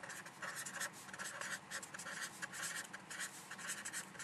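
Marker pen writing on paper: a quick run of short scratchy strokes with brief gaps between them.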